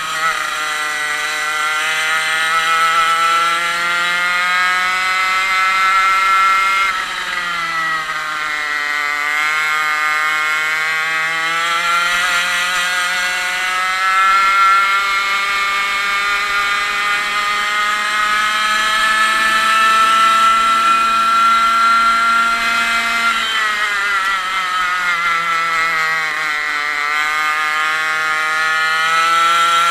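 A 100cc two-stroke kart engine heard from on board, its pitch climbing steadily down the straights. It drops sharply as the kart slows for a corner, once about seven seconds in and again around twenty-three seconds, then climbs again.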